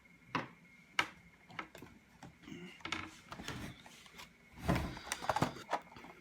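Handling noise as things are picked up and moved about: scattered clicks and knocks, with a louder clatter about five seconds in.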